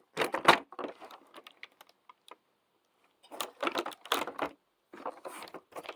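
Clusters of light clicks and taps from small plastic fidget toys and their packaging being handled, with a quiet pause in the middle.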